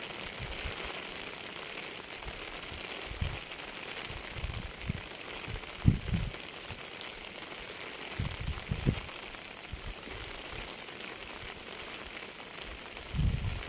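Steady rain hiss, with short low thumps breaking through now and then: the strongest about six seconds in, and a cluster near the end.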